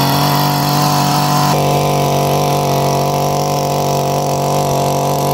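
Two-stroke chainsaw held at high, steady revs while its bar cuts down into packed snow. The tone shifts slightly about a second and a half in.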